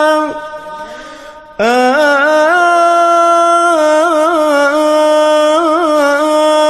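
A man's voice in melodic Quran recitation (tajweed). A held note ends just after the start and fades in the echo; about a second and a half in, the voice slides up into one long drawn-out note, ornamented with small trills.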